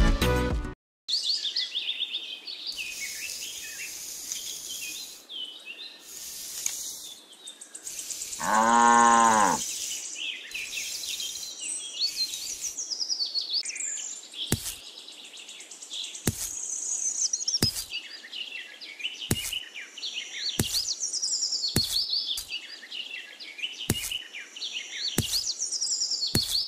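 Farmyard ambience of birds chirping and twittering, with a single cow moo about nine seconds in. From about halfway, sharp clicks come roughly every second and a half, in step with seeds being set one by one into the sand plot. A music track cuts off right at the start.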